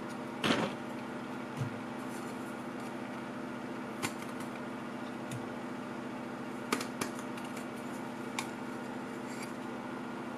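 Hand-handling sounds at a CNC engraver's fixture plate: a short scrape about half a second in, then a few light clicks and taps as a centering pin is pulled and the copper-clad PCB blank is lifted off to be turned over for the second side. A steady hum with several fixed tones runs underneath.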